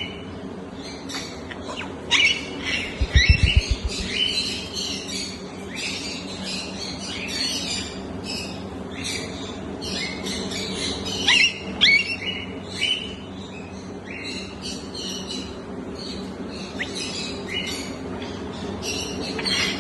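African grey parrot chirping and whistling almost without pause, with a few louder sharp squawks about two to four seconds in and again around eleven to twelve seconds. A short run of low thuds comes about three seconds in, over a steady low hum.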